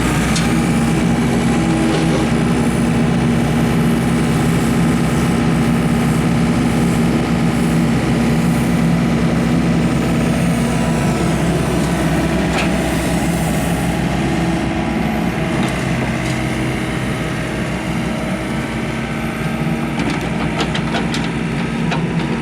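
A Volvo EW55 wheeled excavator's diesel engine running steadily, its pitch shifting a little about halfway through. A few short clicks or knocks sound over it about halfway and again near the end.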